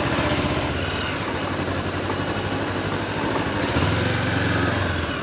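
Honda CB400X parallel-twin motorcycle engine running with a steady low note that grows louder for about a second near the end.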